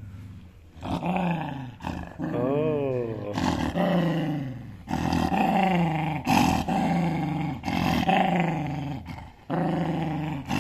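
Dog growling in a string of drawn-out grumbles, each about a second long and falling in pitch, one of them wavering, while it guards a slice of pizza from a hand reaching near it.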